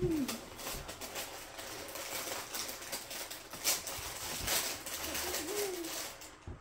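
Plastic cereal-bag liner crinkling and crackling as it is handled and pulled open, with one sharper crackle near the middle. A short hummed 'mm' at the start and again near the end.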